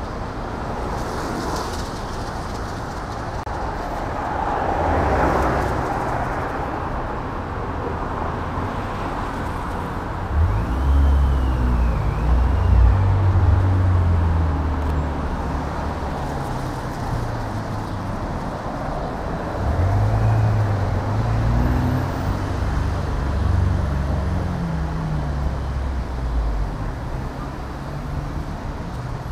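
Street traffic passing. A vehicle's hiss swells about five seconds in, and deep engine rumble from passing vehicles builds around ten to fifteen seconds and again around twenty seconds.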